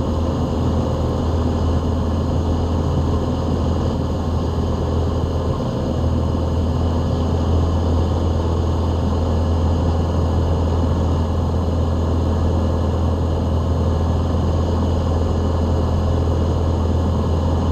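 Single-engine piston airplane's engine and propeller running at a steady cruise setting, heard from inside the cockpit as an even, unchanging drone.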